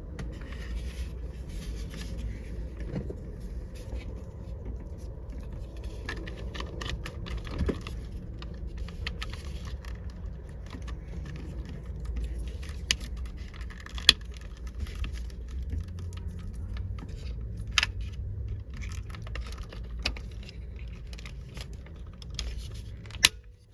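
Nissan 350Z power window switch wiring connectors being handled and plugged back into the switch: a continuous rattle of plastic and wire with scattered clicks over a steady low hum, and a few sharper clicks about 14 and 18 seconds in and near the end.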